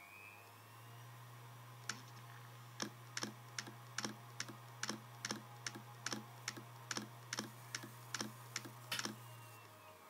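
Samsung HD321KJ 7200 rpm SATA hard drive powered up: its spindle motor hums, with a rising whine in the first second. From about two seconds in, its heads knock sharply about two or three times a second, and near the end the hum fades as the drive spins down. Repeated knocking like this, with the drive doing nothing else, is typical of a failed hard drive's "click of death".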